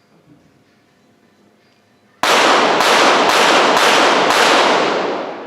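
A five-shot series from .22 Short rapid-fire pistols, five sharp shots about half a second apart starting about two seconds in. The range rings after the shots and fades out by the end.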